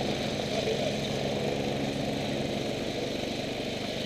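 Dirt bike engine idling steadily.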